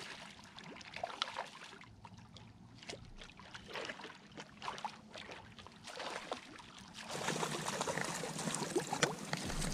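Water splashing as a hooked speckled trout thrashes at the surface beside the skiff: irregular splashes that turn louder and denser about seven seconds in.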